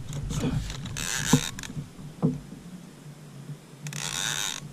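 Abu Garcia 6500 baitcasting reel clicking and whirring in two bursts, about a second in and near the end, while a large catfish pulls against the bent rod.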